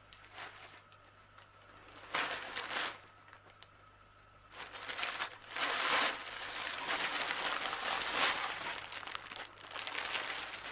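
Plastic packaging crinkling and rustling as it is handled: a short burst about two seconds in, then a longer stretch of crinkling from about halfway through.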